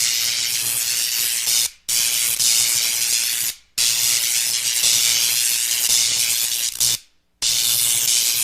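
Electricity sound effect: a loud, harsh hiss of sparking current with a faint low hum beneath it, in long stretches cut by three brief gaps, about two seconds in, just before four seconds and about seven seconds in.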